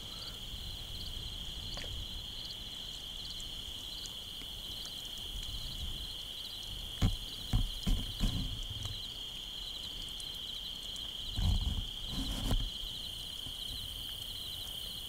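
Insects in a field, a steady high drone with regular chirps on top. A few short low thumps come around the middle and again near the end.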